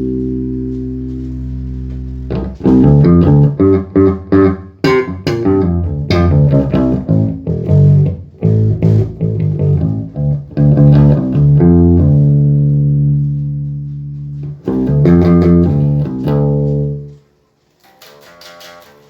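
Five-string Warwick Corvette SS bass guitar with a custom two-band EQ preamp, played through an amp's 1x12 Eminence speaker. A held note rings out and fades, then a run of plucked notes and held notes follows. The playing drops away near the end.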